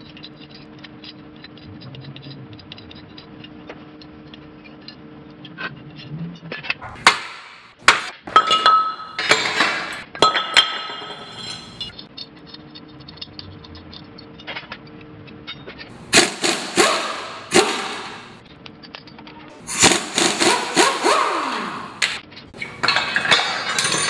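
Metal clinking and clanking of wrenches and a steel brake rotor being worked off its hub with jacking bolts and set down on concrete, in several bursts with the loudest clatter near the end. Faint music plays underneath in the quieter stretches.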